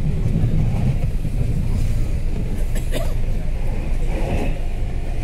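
Steady low rumble of a metro train running on its track, heard from on board, with a few short clicks about three seconds in.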